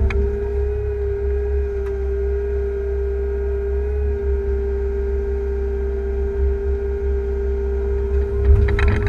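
Liebherr 311 wheeled excavator heard from inside its cab: the diesel engine running under a steady whining tone as the boom and bucket work, with a few knocks and a louder moment near the end.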